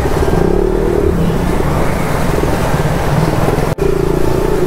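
KTM Duke 200 single-cylinder motorcycle engine running steadily while the bike wades through floodwater. The sound breaks off for an instant near the end and picks up again with a steadier hum.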